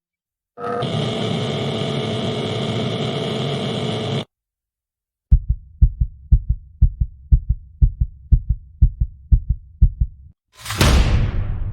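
A sequence of horror sound effects: first a steady dark drone with held tones for about three and a half seconds, then a cinematic heartbeat of low, fast double thumps for about five seconds. Near the end a sudden loud impact hit fades out slowly.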